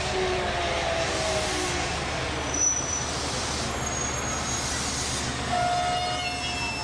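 An electric train moving along the adjacent track, its motor whine falling in pitch during the first second or so as it slows. Near the end there is a brief steady squeal with thin high tones. A steady low hum runs underneath, from the stopped diesel railcar idling at the platform.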